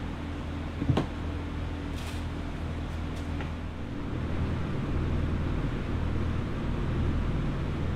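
A steady low mechanical hum with a single sharp knock about a second in; about four seconds in a broader, slightly louder rumble joins it.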